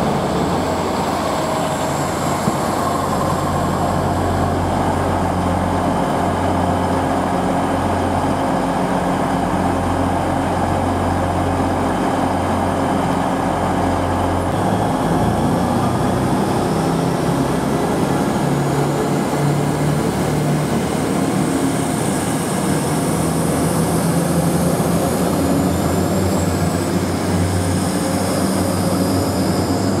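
Diesel multiple-unit train engines running at a station platform: a steady diesel drone whose engine note changes about halfway through.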